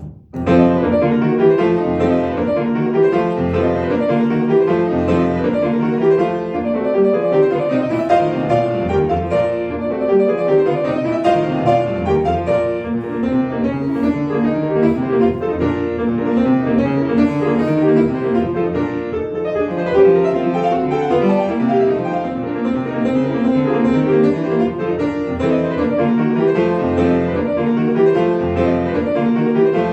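Solo grand piano playing dense, continuous classical music, coming in loud about half a second in.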